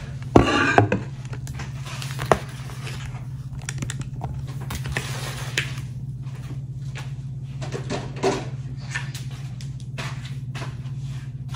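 Light clicks and rustles of freshly fried tortilla chips and paper towel being handled on a paper plate, over a steady low hum.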